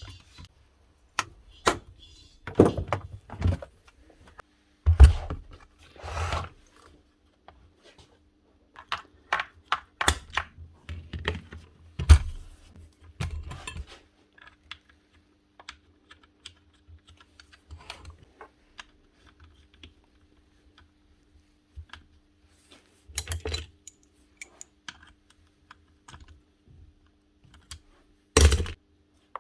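Irregular clicks, knocks and clatter of hard parts being handled, with the loudest knocks about 5 s and 12 s in and short clusters near 23 s and 28 s, over a faint steady hum.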